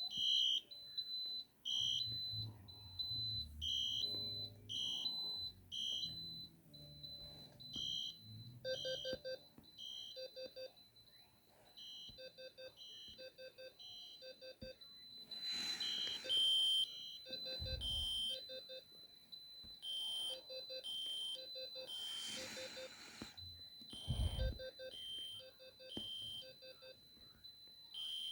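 Several fire alarm notification appliances sounding at once: a steady high-pitched tone under several electronic horns beeping in short repeated pulses. A lower pulsing tone joins about nine seconds in, and two dull thumps come in the second half.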